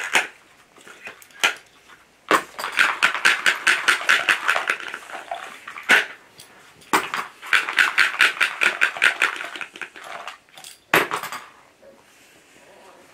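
Clattering, metallic-sounding rattle shaken by hand in two bouts of fast rattling, each several seconds long, with a few sharp single knocks between them. It is a noise stimulus in a puppy temperament test.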